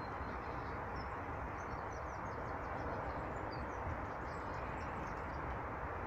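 Small birds calling in many short, high, thin chirps, busiest through the middle few seconds, over a steady low outdoor background noise.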